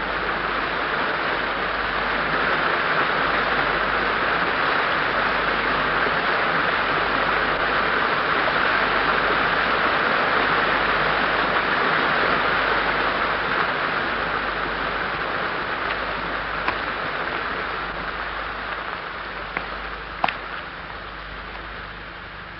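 Rushing water echoing in a cave: a steady rush that swells over the first several seconds and then slowly fades, with a few short clicks near the end.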